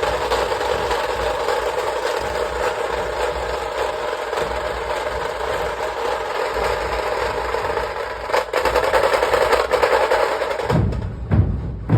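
Dhol-tasha drum ensemble playing: a fast, unbroken roll of tasha drums with dhol beats underneath. About eleven seconds in, the roll breaks off into separate heavy dhol strikes.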